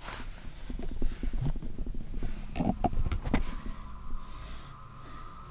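Irregular clicks, knocks and scraping as old clothing and broken plaster debris are moved about on a rubble-covered floor, with a few sharper knocks near the middle.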